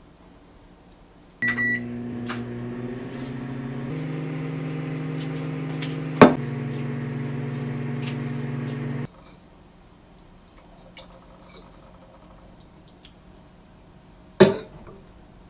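Microwave oven beeping once as it starts, then running with a steady hum that shifts pitch a few seconds in and stops abruptly. A sharp click in the middle and a loud knock near the end.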